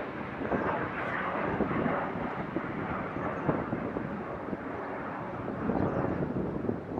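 A fixed-wing aircraft's engines making a steady rushing noise that rises and falls a little, mixed with wind on the microphone.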